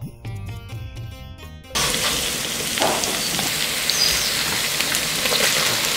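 Plucked-string background music for the first second and a half or so, then a sudden cut to chopped aromatics sizzling in hot oil in a black iron wok, a steady loud hiss with scattered crackles.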